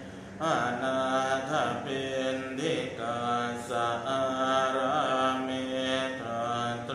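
Thai Buddhist morning chanting: voices reciting in a slow, melodic line of long held notes that glide and waver in pitch. A brief pause comes right at the start, then a new phrase begins.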